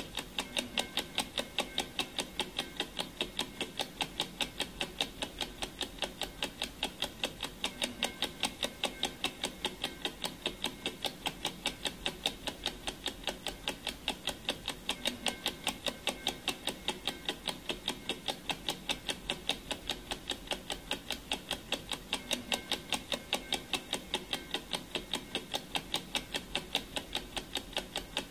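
A clock's ticking, used as the sound effect for a countdown timer: a steady, even run of sharp ticks that never lets up.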